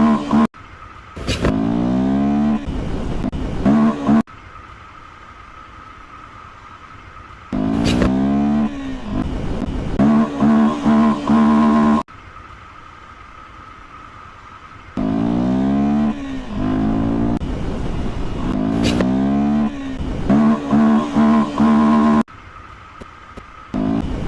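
Honda XR 300L Tornado's single-cylinder engine revving hard in repeated bursts, the pitch sweeping up and holding with brief throttle cuts. Several quieter gaps of a few seconds fall between the bursts.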